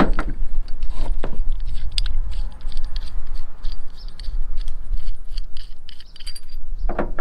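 Light clicks and clinks of hardware being handled as a black reservoir clamp is fitted around the reservoir of a Fox 2.0 truck shock, over a steady low rumble.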